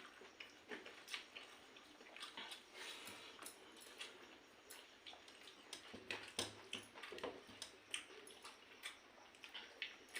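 Close eating sounds of a person eating pakhala, fermented rice in water, by hand: irregular soft smacks, clicks and wet squelches of chewing and mixing.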